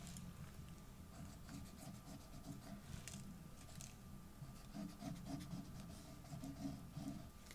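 Faint scratching of a liquid-glue bottle's nozzle tip drawn along cardstock glue tabs as glue is squeezed out, over a low steady hum.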